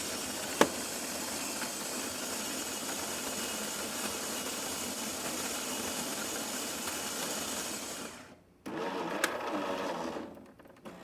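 Jura S9 espresso machine's built-in grinder grinding beans for an espresso shot, a steady motor whirr lasting about eight seconds with a sharp click shortly after it starts. After a brief pause, a second, shorter mechanical whirr follows as the machine continues the brew cycle.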